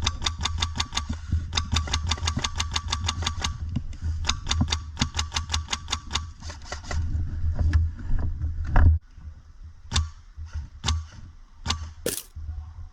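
Airsoft rifle fired on full auto, its Polarstar F2 HPA engine cracking out sharp shots about nine a second in two long bursts, then a few single shots near the end. A low rumble runs under the first two-thirds and stops about nine seconds in.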